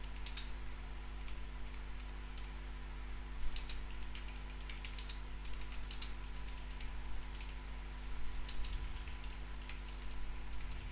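Computer keyboard being typed on in short, irregular runs of key clicks, over a steady low hum.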